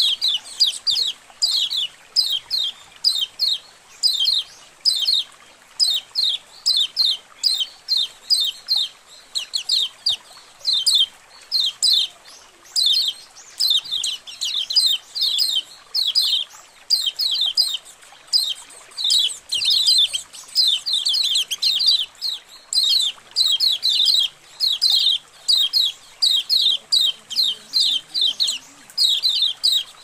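A colony of kecial kuning white-eyes chirping together. Many short, high, downward-sliding chirps come in quick clusters with brief gaps, without pause.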